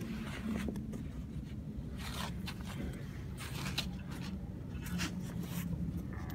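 A hand stroking a husky's thick fur, with irregular rustling and scraping strokes close to the microphone, over a low steady hum.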